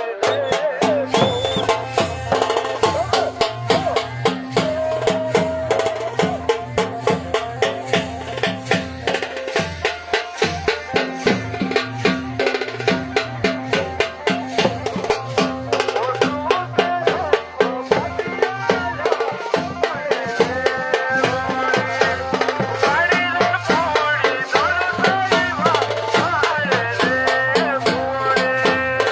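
Wedding band playing: fast, steady drumming with a melody line over it.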